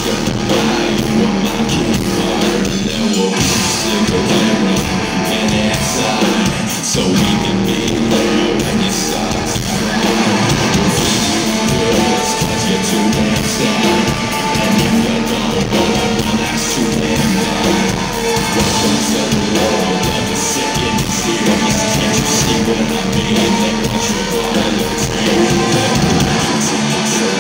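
Live hard rock band playing: electric guitars and drums with a singer's vocals, loud and continuous.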